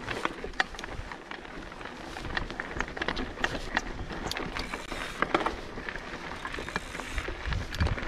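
Mountain bike riding over rough ground: the tyres crunch and the bike rattles, with many scattered sharp clicks, and wind rumbles on the microphone.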